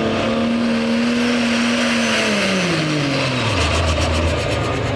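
Dodge Ram's Cummins diesel engine running hard under load while pulling the sled, holding a steady pitch for about two seconds, then its revs dropping steeply and staying low near the end.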